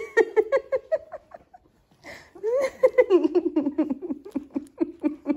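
A person laughing in two quick runs of short, pitched 'ha' pulses, with a breath drawn in between; the second run is longer and falls in pitch.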